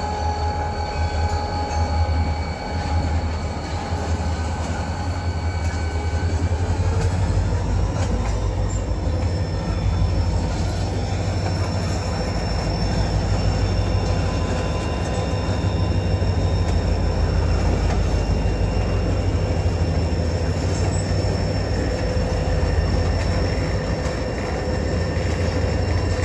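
A freight train's cars rolling slowly past with a steady low rumble and continuous high wheel squeal, several shrill tones held at once that shift pitch about seven seconds in.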